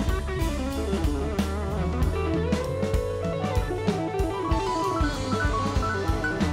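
Live band playing an instrumental passage: electric guitar and electric bass lines over a steady drum kit, with keyboard, and no singing. About two and a half seconds in, one held note bends in pitch.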